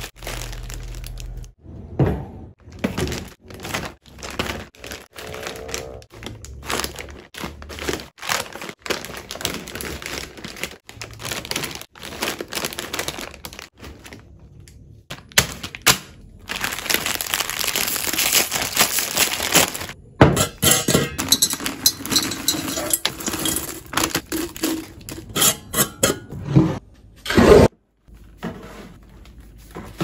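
Foil snack packets crinkling and rustling as they are handled and packed, with many short thunks and knocks as packets and plastic baskets are set down. There is a longer stretch of dense crinkling a little past the middle.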